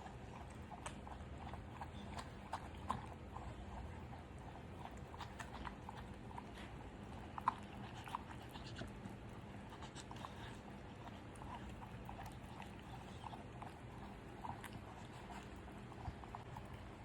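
Bull terrier eating its dinner: irregular small crunches and clicks of chewing food, with a sharper click about halfway through.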